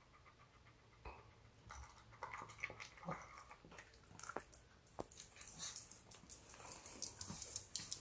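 Shih Tzu eating dry kibble from a bowl: faint crunching and chewing with a run of sharp clicks, starting about a second in and growing busier toward the end.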